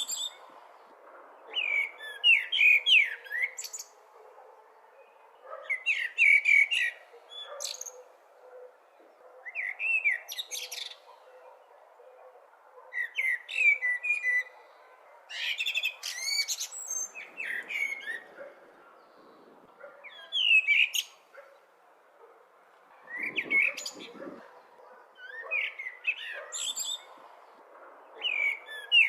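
Blackbird singing: short warbled song phrases, each rising into higher squeaky notes at its end, repeated about every three seconds with short pauses between, over a faint steady background hiss.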